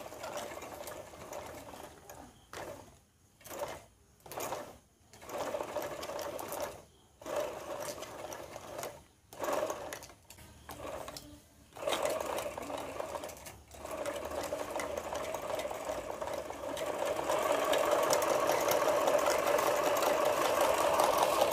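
Homemade steam-driven piston engine and its belt-driven pulley rig running with a rapid mechanical chatter. For the first dozen or so seconds it goes in stop-start spurts while the pulley is turned by hand. It then catches and runs steadily, growing louder over the last few seconds.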